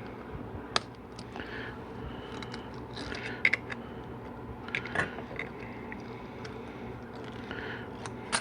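Small metal clicks and scrapes as a spiral lock retainer is pried up and walked off a 4L80E transmission sprag drum, a sharp click every second or two, over a steady low hum.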